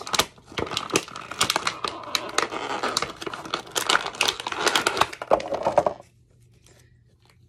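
Thin clear plastic bag crinkling and tearing as it is pulled off an action figure by hand, a dense run of crackles that stops about six seconds in.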